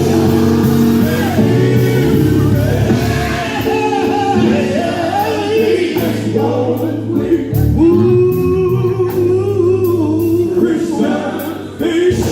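Gospel group singing in harmony with a band behind them, the voices holding long bending notes over steady low chords; sharp beats come in more often in the second half.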